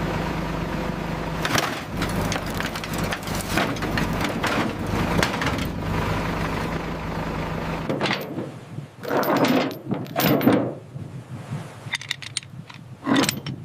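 Machinery running with a low steady hum under a dense clatter of metallic knocks and rattles. The hum cuts off suddenly about eight seconds in, leaving scattered knocks and scraping bursts.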